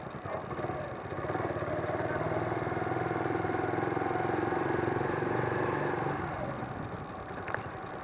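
Motorcycle engine running under way. It picks up about a second in, holds fairly steady, then eases off near the end.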